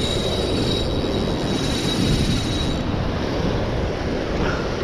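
Wind buffeting the microphone in a steady low rumble, with surf breaking over the shoreline water. A thin high whine runs alongside and stops about three seconds in.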